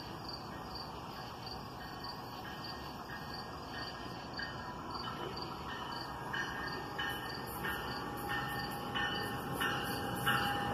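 Crickets chirping steadily while an approaching NJ Transit push-pull commuter train, bi-level cab car leading, comes closer: its wheels click over the rail joints, the clicks growing louder from about halfway through, and a steady whine joins them near the end.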